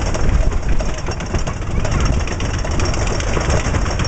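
Roller coaster train running along its track with a loud, continuous rattling clatter over a heavy low rumble.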